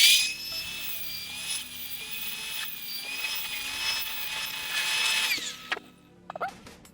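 High-speed power cutting tool whining steadily as it cuts into a steel washer, then spinning down with a falling whine about five seconds in.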